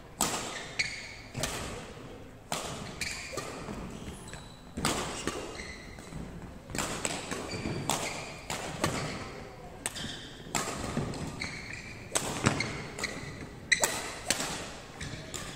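Badminton rally: rackets striking the shuttlecock again and again, with shoes squeaking and thudding on the wooden court floor. The hits echo in a large hall.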